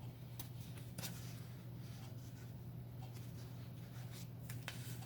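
Tarot cards being handled: faint rustling with a few light taps, over a steady low hum.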